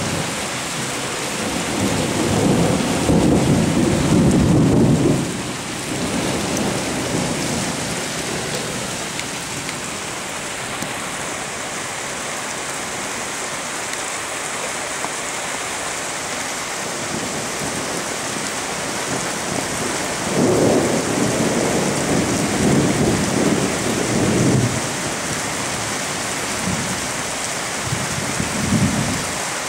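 Steady rain hissing through a thunderstorm, with thunder rumbling for several seconds starting about two seconds in, again for several seconds about twenty seconds in, and a shorter rumble near the end.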